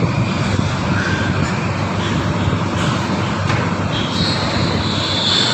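Piglet squealing continuously while held for teeth clipping, getting shriller near the end.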